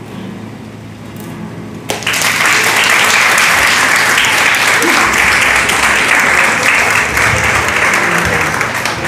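Audience applauding. The clapping breaks out suddenly about two seconds in and keeps up steadily.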